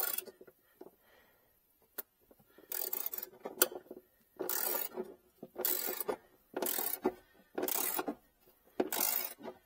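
Socket ratchet wrench clicking in repeated short strokes, about one a second, tightening the bolt that holds the car battery down.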